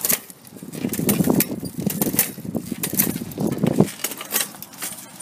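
Bicycle chain clattering and skipping over the rear cassette while being pedalled, with irregular sharp metallic clicks. The rear derailleur is tied down with thread so the chain sits between gears and will barely catch.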